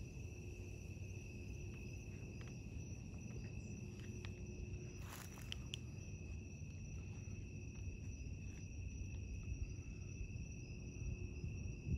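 Steady chorus of night insects, a constant high-pitched trill, over a low background rumble, with a brief rustle and a few light clicks about five seconds in.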